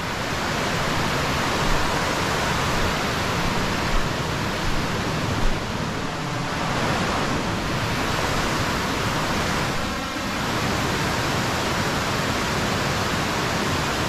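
Steady rush of river water tumbling over rocks in rapids.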